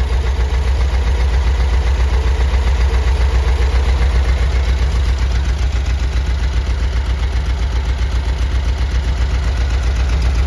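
Air-cooled flat-four engine of a 1973 Volkswagen Squareback, twin-carburettor, idling steadily with an even pulse. Its number three cylinder is down on compression.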